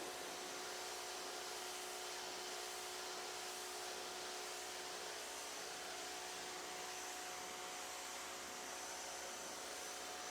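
Pressure washer running steadily: a constant hiss of spray over an even machine hum.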